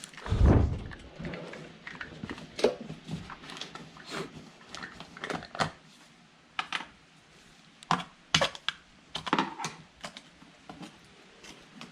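Plastic motor-oil bottle being picked up and handled: a low thump about half a second in, then irregular clicks and crackles of plastic.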